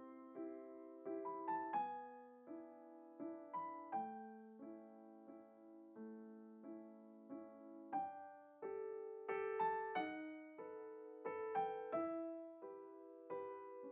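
Solo piano music: a gentle melody of single notes and chords, each struck and then fading.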